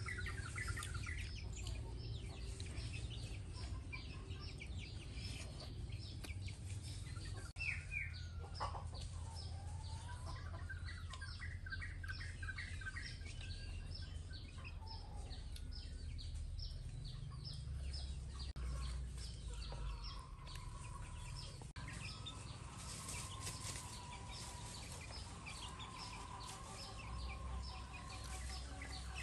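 Birds chirping and calling in the open air, with many short repeated chirps. A louder call about eight seconds in dips and rises in pitch and is followed by a run of short calls, and a steady high tone joins from about twenty seconds in.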